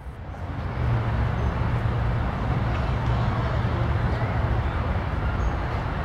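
Steady outdoor background noise dominated by a low rumble, swelling up over the first second and then holding steady.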